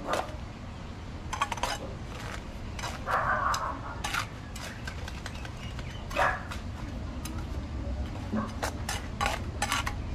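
Mason's trowel clinking and scraping against stones and mortar: irregular sharp taps scattered throughout, a short scrape about three seconds in, and a quicker run of taps near the end.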